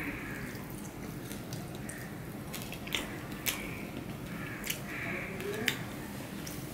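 Close-miked eating by hand: chewing and wet mouth smacks over rice and fish curry. A few sharp clicks come in the second half, as fingers mix rice on a steel plate.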